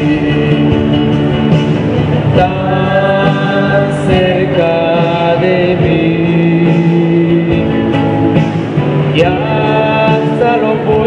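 Slow music with singing: voices holding long notes over an accompaniment.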